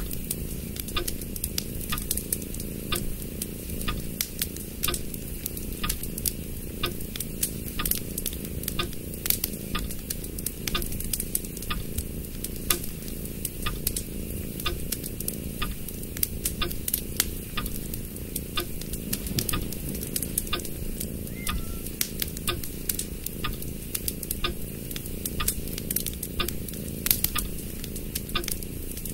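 A sheet of origami paper rustling and crackling as it is folded and creased by hand: many small crisp clicks over a steady low background noise.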